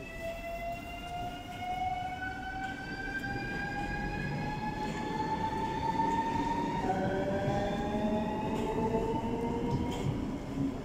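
Lastochka (Siemens Desiro) electric train's traction drive whining as it accelerates away from the platform, the pitch rising slowly and steadily. A second, lower whine joins about seven seconds in, over a low rumble of the train.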